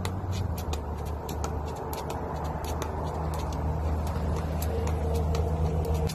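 Jump rope slapping the pavement in a steady rhythm, about three sharp clicks a second, over a steady low rumble that grows slightly louder near the end.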